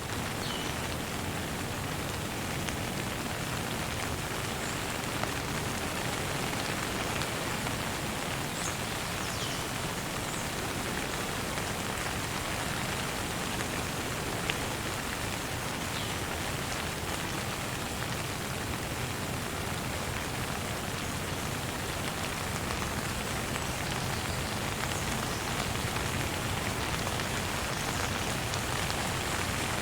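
Steady rain falling: an even hiss with a couple of louder single drops.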